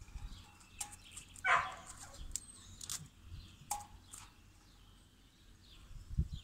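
Faint scattered clicks and scrapes of close handling against the wall and metal post, with a short rustling burst about a second and a half in.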